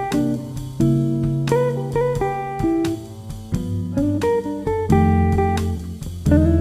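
Background music: plucked guitar playing a melody over bass notes.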